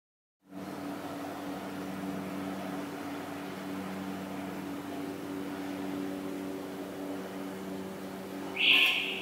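Steady machinery hum of a few held low tones with light hiss. Near the end comes a short, loud, high-pitched squeak.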